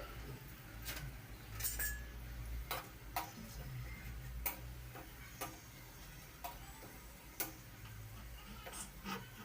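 A dozen or so irregular sharp clicks and taps over a low steady hum.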